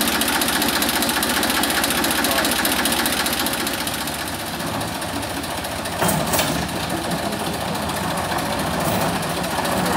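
Small narrow-gauge railway locomotive's engine running with a fast, even beat, and a brief clunk about six seconds in.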